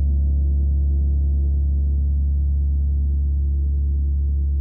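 A 32-inch Tree of Life gong ringing out after a strike: a deep, steady low drone with a rich stack of overtones and a slight pulsing, fading very slowly over its long sustain.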